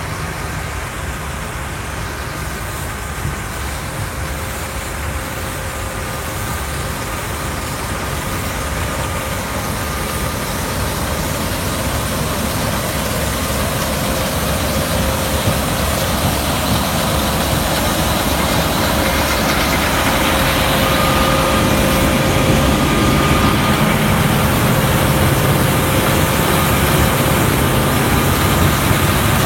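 A vehicle engine running steadily with a low rumble, growing gradually louder.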